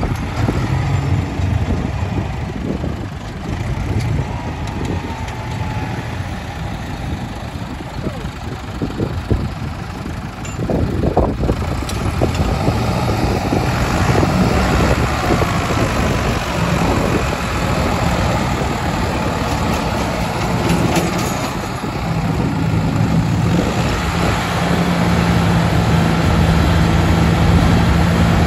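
Diesel engines of a Massey Ferguson 188 and a New Holland T480 tractor pulling against each other through a tow strap. The engines get louder about ten seconds in, as the pull takes up the strain, and hold a steady hard-working drone that grows a little louder near the end.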